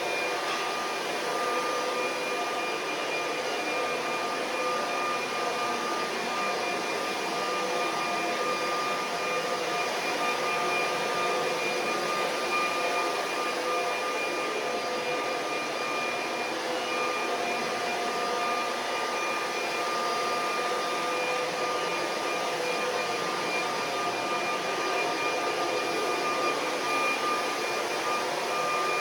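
Vacuum cleaner running steadily, its motor giving a constant whine over the rush of air.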